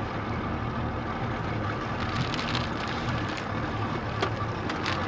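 Motorboat engine idling steadily with a low hum while the boat waits to tow a water-skier, with a few faint knocks.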